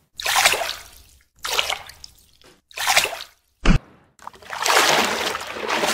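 Pool water splashing and sloshing as a person paddles through it with their arms: three short splashes, a sharp knock, then a longer run of sloshing.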